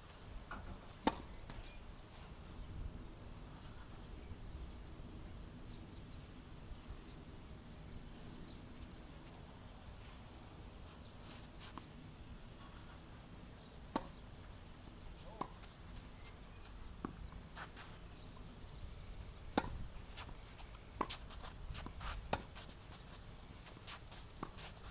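Tennis ball being struck by rackets and bouncing on a synthetic-grass court: a few soft taps in the first half, then a run of sharp pops every one and a half to two and a half seconds in the second half, the pace of a rally.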